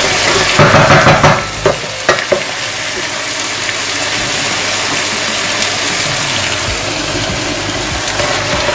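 Food sizzling steadily in a frying pan, with a spell of stirring and scraping about a second in and a few sharp knocks of the utensil against the pan soon after.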